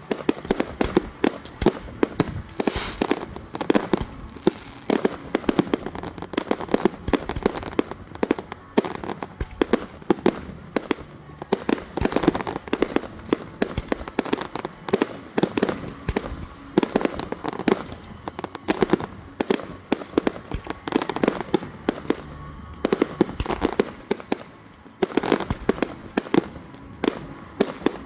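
Aerial fireworks shells bursting in rapid succession: a dense, continuous run of sharp bangs and crackles, several per second.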